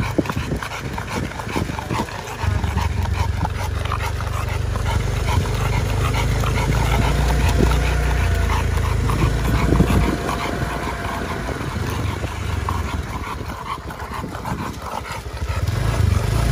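A large bully-breed dog panting hard as it trots on a leash, a quick, rhythmic breathing, over a steady low rumble.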